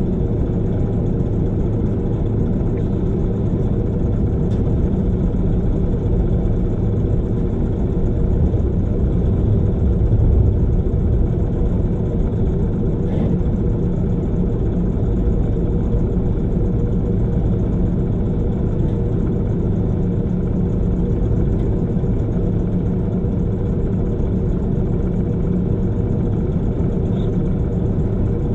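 Semi-truck diesel engine idling steadily, a low even rumble, swelling slightly about ten seconds in.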